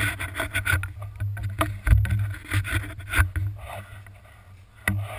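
Rubbing and knocking handling noise from a camera mounted on a paintball marker as the player moves and grips the gun, over an uneven low rumble, with a few sharp knocks scattered through.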